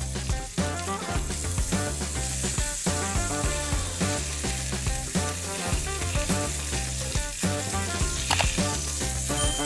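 Cauliflower steak sizzling on a hot cast-iron grill pan, under background music.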